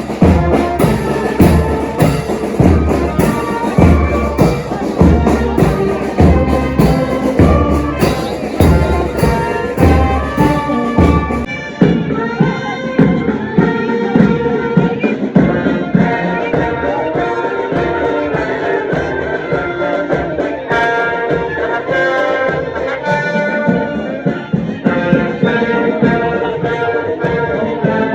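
Brass band playing, with horns over a strong, regular drum beat; about eleven seconds in the drum beat falls away and the horns carry on alone.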